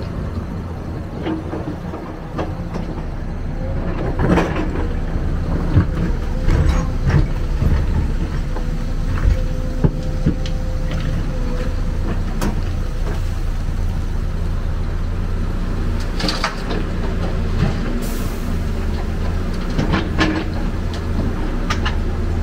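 Heavy diesel engine of an excavator at work, running steadily, with scattered knocks and clanks and a brief hiss near the end.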